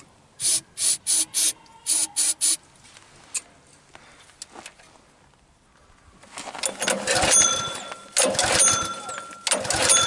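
Aerosol can of starting fluid sprayed in about seven short squirts. A few seconds later comes the whirring rattle of a Honda GX engine's recoil starter pulled several times, with the engine cranking but not catching even on the starting fluid.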